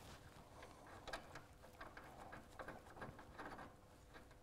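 Near silence broken by faint, irregular small clicks and taps of hand tools on metal, as a steering track rod fitting is being worked off.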